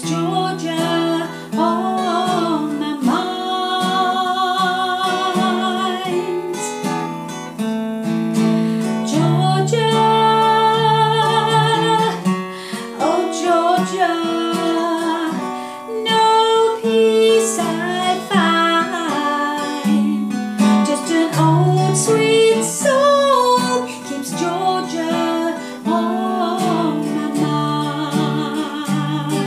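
A woman singing a slow song with vibrato on held notes, accompanied by strummed acoustic guitar.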